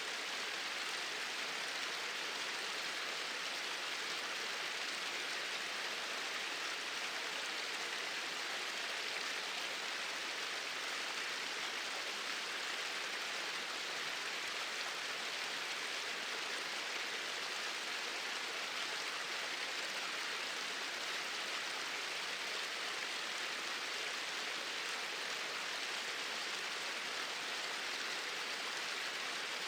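Small waterfalls pouring steadily: an even, unbroken rushing hiss of falling water.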